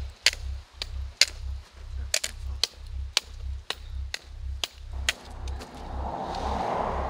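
Background music: a steady low pulse about twice a second under sharp, clicking percussion, with a swell of noise building over the last two seconds.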